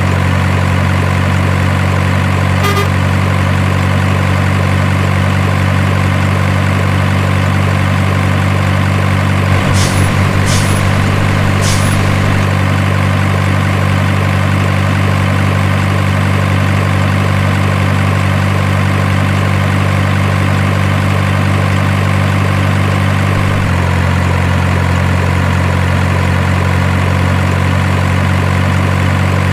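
Truck engine idling sound, steady and unchanging, with three short clicks about ten seconds in and a slight shift in its tone near the end.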